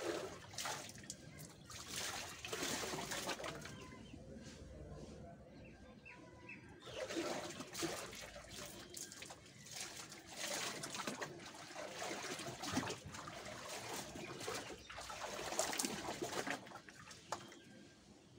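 Water splashing and streaming back into a plastic tub as long wet hair is dunked, lifted out and squeezed by hand. The splashing comes in uneven spells, with a quieter stretch a few seconds in.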